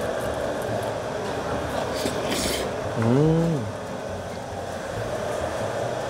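Steady background din of a restaurant, with a short hiss about two and a half seconds in and a brief rising-then-falling hum from a person about three seconds in.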